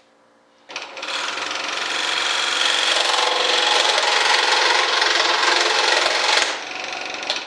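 A power tool grinding down a part to fit, running steadily for about six seconds, easing off near the end and then stopping.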